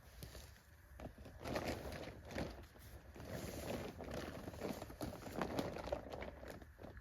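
Irregular rustling and scuffing as a camping tent is handled and people step about on the ground, starting about a second in.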